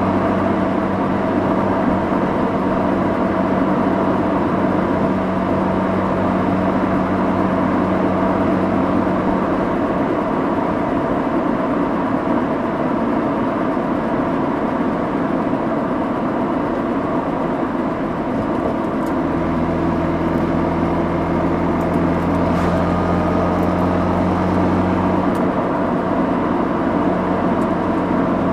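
Mazda RX-8's two-rotor rotary engine and exhaust with tyre and road noise while driving, picked up at the rear bumper. A steady engine note runs for the first ten seconds, sinks into the road noise in the middle, and comes back at a slightly lower steady pitch about two-thirds of the way in.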